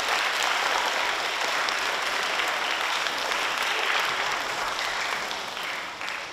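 Audience of schoolchildren applauding, dying away near the end.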